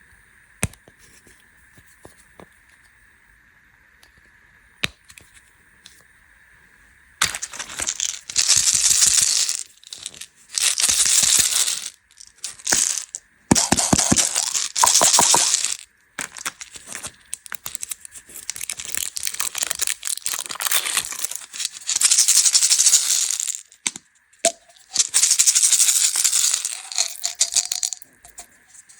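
Plastic candy packaging being handled: a few small clicks, then from about seven seconds in, repeated loud crinkling and rattling bursts of one to three seconds each.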